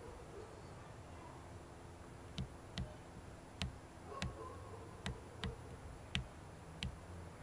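A run of about nine sharp, short clicks at uneven intervals, starting a little over two seconds in, over a faint steady background hiss: the controls of a tripod-mounted Canon 80D being pressed and turned while the view is zoomed in and set on the moon.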